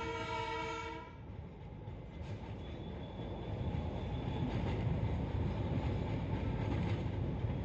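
A horn sounds until about a second in. Then the narrow-gauge Darjeeling Himalayan Railway train runs on with a steady rumble and rattle of its carriage and wheels on the track.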